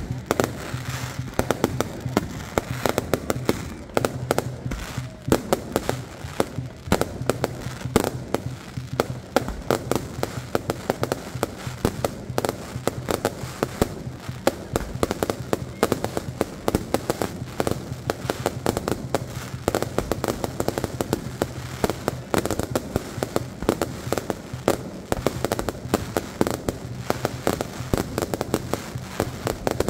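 Aerial fireworks going off in a rapid, continuous barrage of bangs and crackles, many bursts overlapping.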